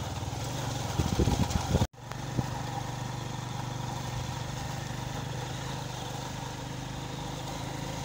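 Small motorcycle engine running steadily under way, heard from the pillion seat, with a light rush of air and road noise. The sound drops out briefly about two seconds in, then the steady engine hum resumes.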